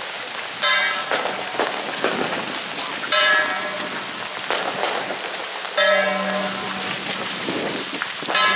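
A bell-like struck metal percussion instrument rings out four times, evenly about two and a half seconds apart, each strike's tones dying away over a second or so. Under it is a steady hiss of rain and a steady low hum.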